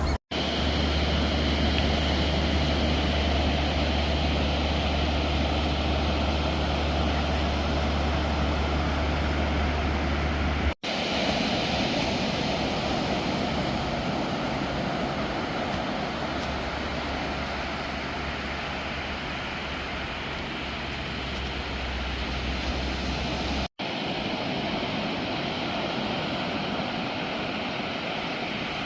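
Steady rushing outdoor noise with a heavy low rumble. The rumble drops away near the end, and the sound breaks off briefly twice where the footage is cut.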